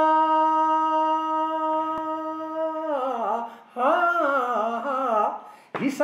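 A man singing a Pahari folk song unaccompanied. He holds one long vowel note for about three seconds, slides down, and after a short breath sings a wavering, ornamented phrase, drawing another breath just before the next line begins.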